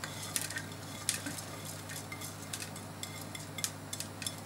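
Sliced vegetables being scraped by hand off a plate onto a metal tray: soft rustling with scattered light clicks and taps, over a steady low hum.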